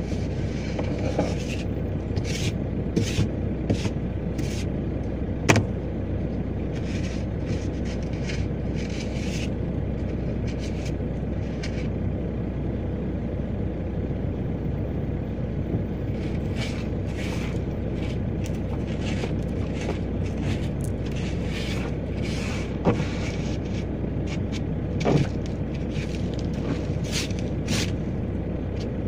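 Opel Y20DTH four-cylinder turbodiesel idling steadily just after a cold start at −3 °C, under irregular clusters of short scraping strokes as the windscreen is cleared.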